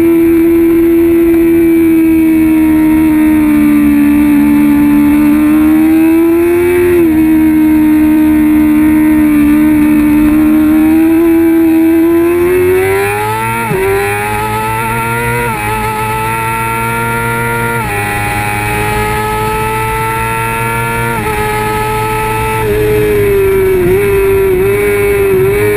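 Kawasaki ZX-6R 636's inline-four engine at high revs, heard from on the bike: a steady high note through the first half, then pulling up through the gears, the pitch climbing and dropping sharply at each of about four upshifts, before wavering near the end.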